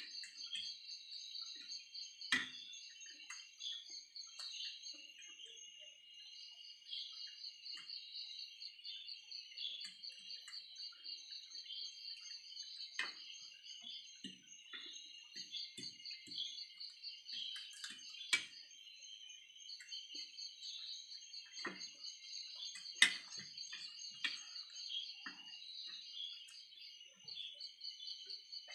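Fast, high-pitched chirping trills from small animals outside keep going with brief pauses, while forks click and clink against plates now and then. The sharpest clink comes a little over three quarters of the way through.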